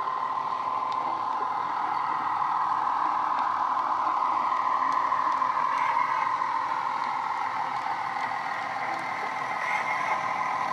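Bachmann OO gauge Class 170 Turbostar model running past, its Loksound 5 decoder playing a recorded Class 170 diesel engine sound through small speakers. The sound grows louder as the model approaches, and the engine note drops in pitch about halfway through.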